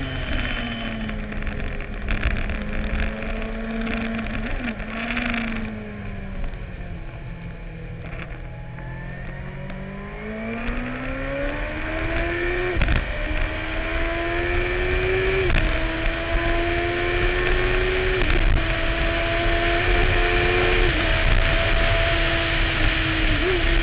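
Suzuki-engined racing sidecar heard onboard, engine running hard: the engine note falls as it slows in the middle, then climbs under acceleration, with an upshift about every two to three seconds near the end, getting louder as it speeds up.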